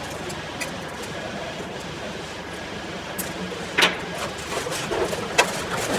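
Sharp clicks and taps from metal pliers and a thin steel control cable being handled while its brass end fitting is fixed on, over a steady background hiss; the loudest click comes about two thirds of the way in, another shortly before the end.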